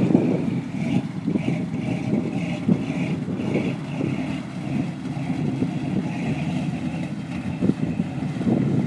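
Old pickup truck's engine running steadily as the truck ploughs through a deep, water-filled mud hole.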